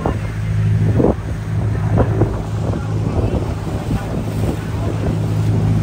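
Boat engine running with a steady low drone, water splashing against the hull and wind buffeting the microphone.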